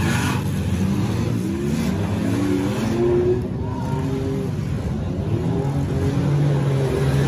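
Several demolition derby cars' engines revving up and down at once, their pitches rising and falling over one another.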